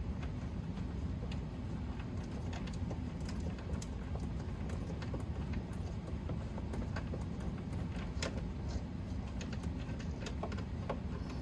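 Scattered light clicks and taps of a screwdriver and plastic parts as a coffee maker's housing is taken apart, over a steady low hum.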